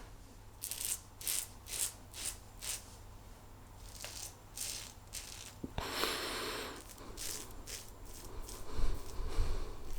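Double-edge safety razor (a quad edge razor with Wilkinson Sword blades) scraping through lathered stubble in a run of short strokes, about two a second at first, then more spaced out, with one longer stroke about six seconds in. A few low knocks near the end.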